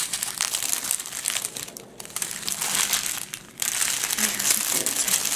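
Thin plastic bags of diamond-painting drills and clear plastic wrapping crinkling as they are handled and shuffled, a dense crackle that dips briefly about two seconds in and again about three and a half seconds in.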